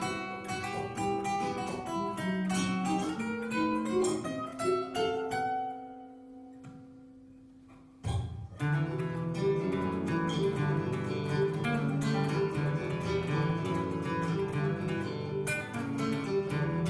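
Background music of plucked acoustic guitar. A run of quick notes climbs, fades away to one held note about six seconds in, then the music starts again fuller about eight seconds in.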